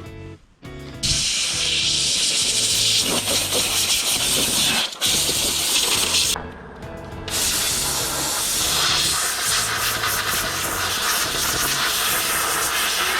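Background music with a steady bass line, under a loud continuous hiss that starts about a second in, stops briefly in the middle, then resumes.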